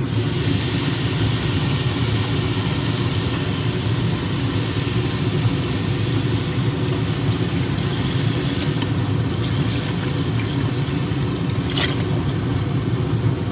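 Beef broth poured steadily from a carton into a hot cast iron Dutch oven, the liquid splashing and sizzling as it hits the hot pan, over a steady low hum.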